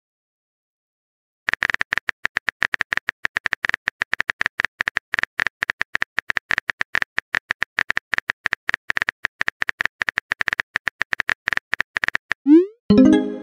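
Rapid phone-keyboard typing clicks, a texting-app sound effect as a message is typed out, about ten clicks a second for some ten seconds. Near the end a short rising pop follows as the message is sent.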